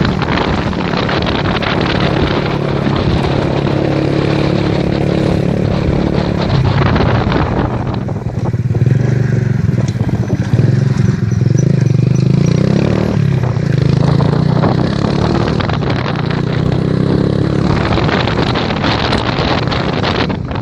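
A motor vehicle's engine running steadily, its pitch shifting in the middle, with wind buffeting the microphone.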